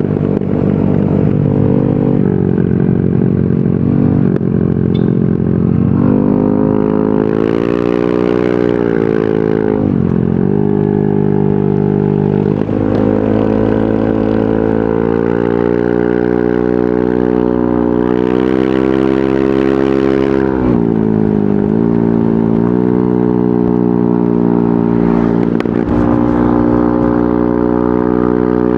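Yamaha NMAX 155 scooter's single-cylinder engine breathing through an aftermarket VMAX Onyx muffler while riding. The exhaust note is steady under throttle; twice it drops as the throttle is closed and then climbs again as the rider accelerates.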